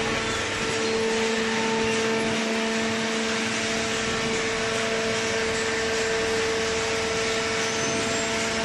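Hydraulic paper baler's motor and pump running steadily: a constant hum over an even rushing noise.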